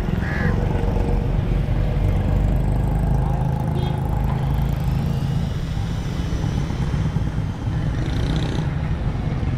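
Steady low rumble of city road traffic, with a faint high whine in the second half.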